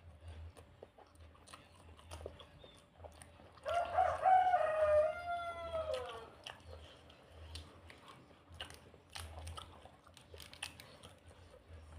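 A rooster crows once, a call of about two and a half seconds that drops in pitch at the end, over the small clicks and smacks of someone chewing food.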